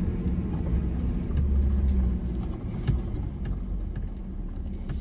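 Ford Ranger PX3 running as it drives slowly up a dirt 4x4 track, a steady engine note over low rumble that eases off a little past halfway, with a few short knocks from the track.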